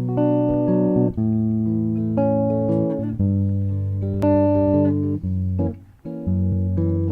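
Live guitar playing the instrumental introduction to a song: plucked chords and notes over a low bass line, with a brief break about six seconds in.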